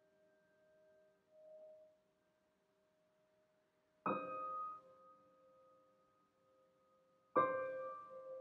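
Solo piano playing slow, sparse chords that are each left to ring and fade: a soft note about a second and a half in, then chords struck about four and seven seconds in.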